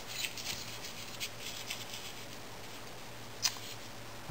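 Faint scraping and rustling as a stainless steel spacebar wire and tubing are slid into and handled against an aluminium bending jig, with one sharp click about three and a half seconds in.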